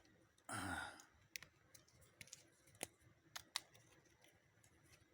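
Faint handling sounds: a short breath out about half a second in, then about five sharp clicks of loose moonstones knocking together.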